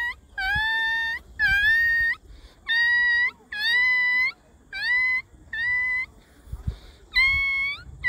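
A puppy whining: a run of about seven or eight high-pitched whines, each under a second long, each rising at the start and then held level, with a short pause about three-quarters of the way through.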